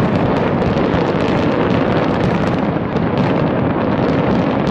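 Fireworks display in a dense barrage: many bangs in quick succession, overlapping into one continuous rumble.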